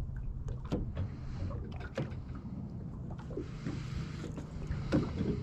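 Sounds aboard a small fishing boat at anchor: a low steady rumble with a light hiss, and scattered light knocks and clicks, the loudest about five seconds in.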